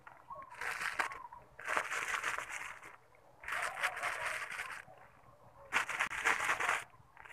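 Plastic packaging crumpled and crinkled by hand close to the microphone, in four bursts of about a second each with short pauses between. The sound is picked up by the phone's built-in microphone, not the lapel mic.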